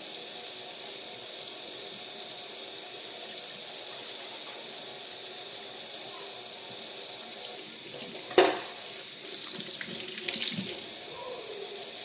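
Tap water running steadily into a sink while a hair comb is washed and rinsed under it. A sharp knock about eight seconds in, then some light clatter.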